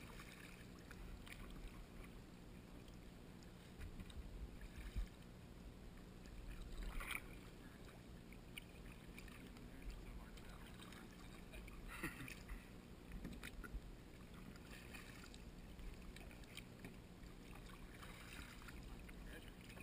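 Kayak paddles dipping into calm water: faint, occasional splashes and drips from the blades, with a few dull low bumps about four to five seconds in.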